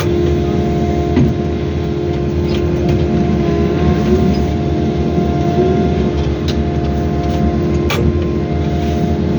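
Wheeled excavator's diesel engine running steadily under load while the machine scrapes and grades soil, with a few sharp knocks, the loudest about eight seconds in.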